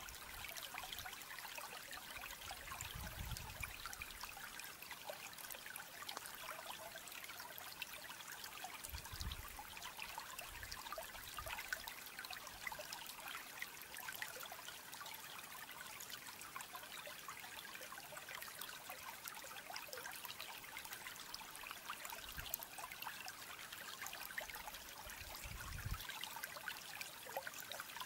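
Faint, steady trickle of running water with scattered small ticks, and a few brief low rumbles.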